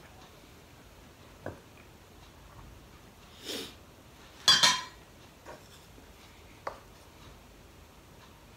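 Steel cooking pot's lid lifted off with a short scrape, then set down with a loud metallic clatter about halfway through, among a few light clicks of dishes.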